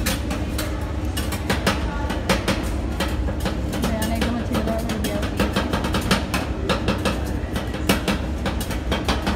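Two steel spatulas chopping and scraping on the metal cold plate of an ice cream roll machine, breaking Oreo biscuits into the cream base. The sound is a rapid, irregular clatter of metallic clicks over a low steady hum.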